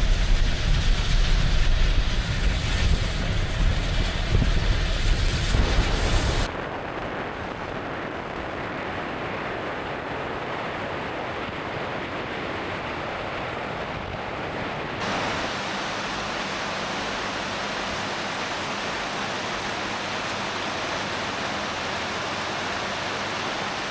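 Car driving, a low rumble with wind noise, for about six and a half seconds, then an abrupt cut to a steady hiss of heavy tropical rain.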